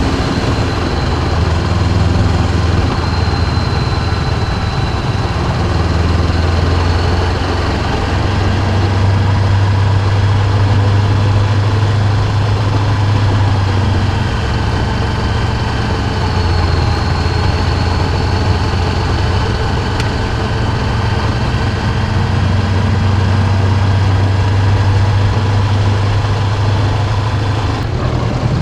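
Honda CB500X's parallel-twin engine running on the move, its low hum rising and easing over several seconds as the speed changes.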